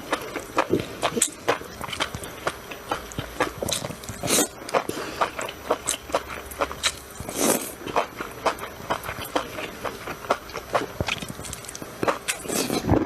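A person chewing a mouthful of enoki mushrooms close to the microphone, with many quick, irregular wet clicks. A few longer, noisier sounds come in between, about a third, a half and near the end of the way through.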